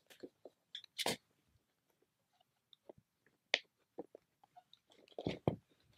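Plastic-wrapped insulation batts being pulled apart and torn out by hand: irregular short crinkles and rustles, with louder ones about a second in and near the end.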